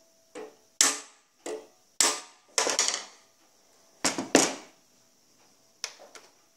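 A small hammer striking a handsaw tooth over the bevelled side of a second hammerhead used as an anvil, setting the tooth. About seven sharp metallic taps with short ringing tails, the loudest around two and four seconds in, then two lighter clicks near the end.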